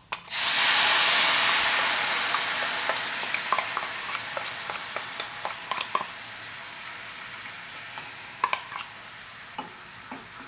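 Soy sauce and sugar syrup poured onto the bare side of a very hot stainless steel pan: a sudden loud hiss just after the start that slowly dies down into a softer bubbling sizzle. Light clicks of chopsticks scraping the sauce bowl and a spoon stirring in the pan come through on top.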